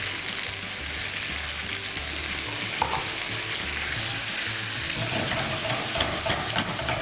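Sliced carrots, potatoes, sweet potatoes and onions sizzling in hot oil in a frying pan while being stirred with a silicone spatula, briefly sautéed with spices. A few sharp clicks of the spatula against the pan come in the last couple of seconds.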